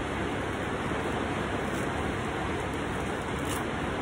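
Steady rushing background noise with a low hum underneath.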